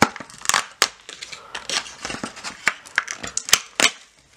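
Plastic and cardboard blind-bag packaging crackling and clicking as its tab is pulled down and the string pulled to split open the confetti-filled plastic ball. The irregular run of sharp crackles stops shortly before the end.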